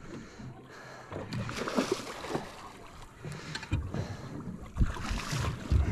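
Water splashing beside a small boat as a hooked yellow-lip emperor thrashes at the surface. Low thumps and knocks come in the second half.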